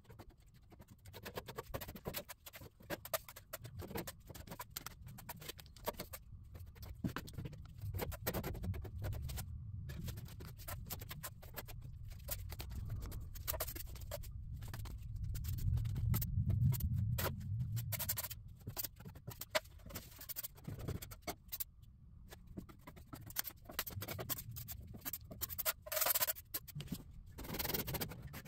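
Irregular light scraping and scratching from hand work on a surface, over a low rumble that swells about halfway through.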